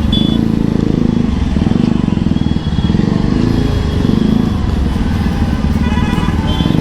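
Bajaj Pulsar NS200's single-cylinder engine running steadily at low revs in slow traffic, with brief high tones now and then.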